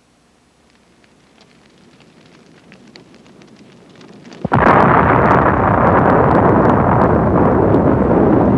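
A small fire on top of an electric drip coffee maker crackles faintly and grows louder. About four and a half seconds in, a sudden loud explosion breaks out, and its blast noise holds steady for several seconds: the fire has set off munitions left stored nearby.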